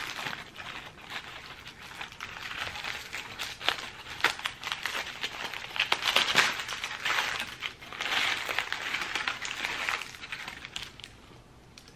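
Paper and aluminium foil wrapper crinkling and rustling as it is peeled back from a gyro, in irregular crackly handfuls. It is loudest about six seconds in and again from about eight to ten seconds, then dies away near the end.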